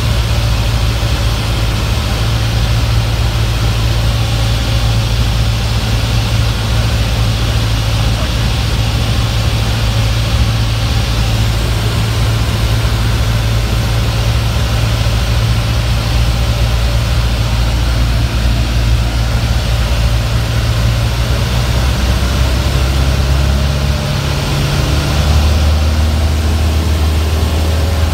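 Single-engine Cessna's piston engine and propeller running steadily in flight, heard as a loud drone inside the cabin. Near the end the engine note changes pitch and grows slightly louder.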